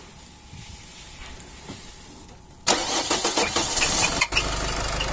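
Nissan X-Trail 2.0 dCi diesel engine cranked and firing up about two and a half seconds in, then running, with short repeated high chirps over it. This is the engine that has been squealing and is suspected of a knocking piston.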